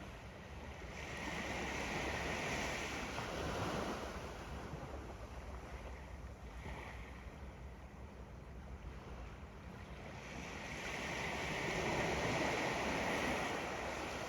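Ocean waves washing up on a sandy beach: the surf swells in twice, about eight seconds apart, with a smaller wash in between.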